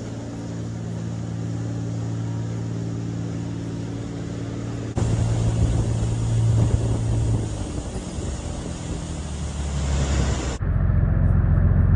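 Engines of a 35-foot Caribbean game boat running steadily under way, with water rushing past the hull. About five seconds in the sound switches abruptly to a louder rush with a lower engine hum, and near the end to a heavy low engine rumble.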